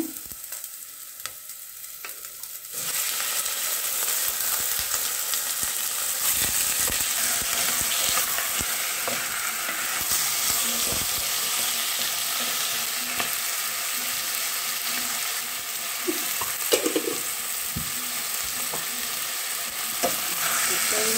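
Raw chicken pieces dropped into hot oil with sautéing onion and garlic, setting off a sudden loud sizzle a little under three seconds in that carries on as steady frying. Scattered clicks and knocks of a wooden spatula stirring in the pot run through it.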